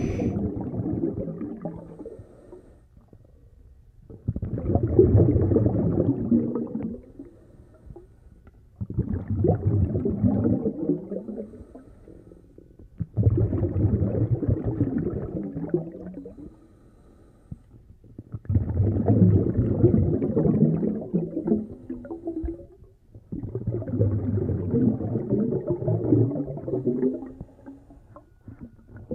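Muffled underwater rumbling and gurgling of pond water moving around a submerged camera, coming in six surges a few seconds long with quieter gaps between.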